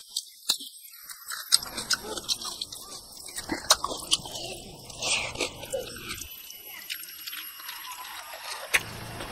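Close-up wet eating sounds: chewing and lip smacking with many sharp mouth clicks, as chicken heads and rice are eaten by hand.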